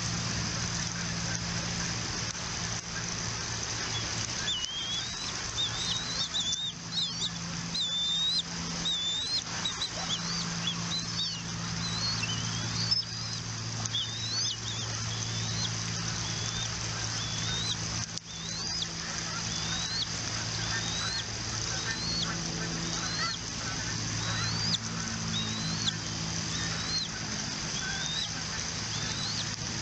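Bald eagles calling: short, high, rising chirps repeated about once a second, over a steady low hum and hiss.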